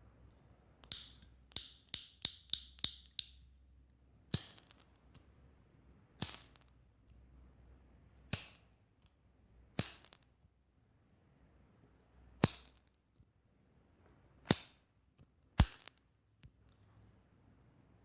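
A cigarette lighter being clicked repeatedly: a quick run of six clicks in the first few seconds, then single clicks every one to two seconds, each with a brief sharp hiss.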